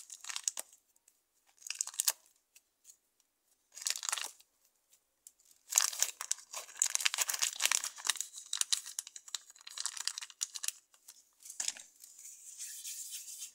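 Plastic bag of modelling clay crinkling and rustling as it is handled to take out a piece of clay: short bursts at first, then a longer stretch of crinkling about six seconds in that tails off softer near the end.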